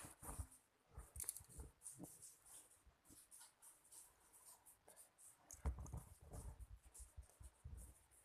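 Near silence with faint scattered rustles and light taps of a fidget spinner being handled, and a few soft low bumps about six seconds in.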